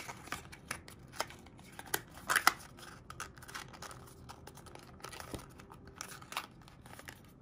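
White paperboard packaging being handled: the cardboard sleeve holding the earbuds' charging cable is folded and slid back into its box, giving light scrapes and small clicks, the sharpest a couple of seconds in.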